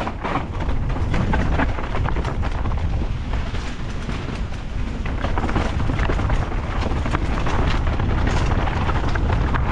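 Mountain bike riding down a dirt trail: tyres rattling over loose dirt and stones, with frequent clicks and knocks from the bike, under a steady low rumble of wind buffeting the camera microphone.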